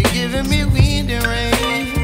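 Background music with a bass line and drum beat.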